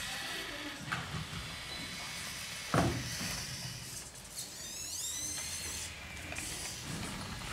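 Small electric drive motors of 1/32 scale radio-controlled farm models whirring over a steady hiss, with a sharp knock about three seconds in and a rising whine a little past the middle.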